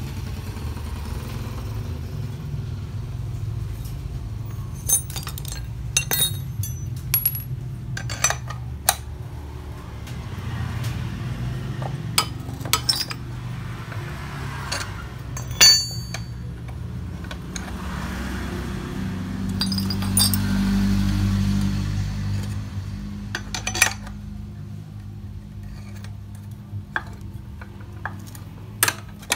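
Sharp metallic clinks and taps of ring spanners against a bearing puller on a scooter CVT cover as its bolt and nut are turned to draw out the pulley bearing, the loudest a ringing clink about halfway through. A steady low hum runs underneath, swelling for a few seconds about two-thirds of the way in.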